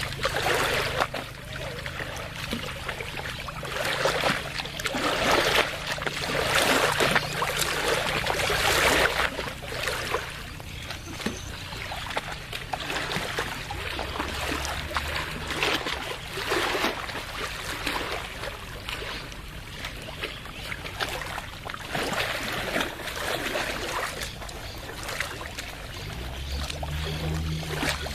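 Small waves of lake water lapping and splashing, in irregular swells every second or two, over a low steady hum.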